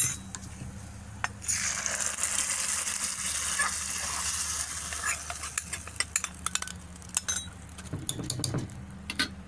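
Hot oil tempering (mustard seeds, cumin, onion and curry leaves) sizzling as it is poured into cooked horse gram dal. The hiss starts about a second and a half in and dies away over a few seconds. Then a steel ladle stirs the dal, clinking against the aluminium pressure cooker.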